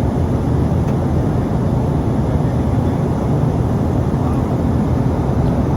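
Steady engine and propeller drone of a twin-turboprop airliner, heard inside the passenger cabin while it climbs out after takeoff.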